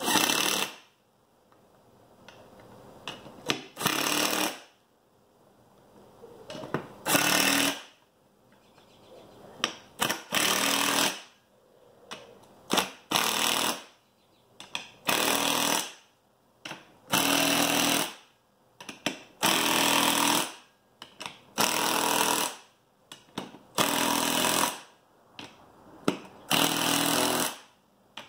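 Cordless impact driver hammering beadlock clamp-ring bolts down in short bursts, about a dozen, one every two seconds or so, as it moves from bolt to bolt around the ring in a star pattern.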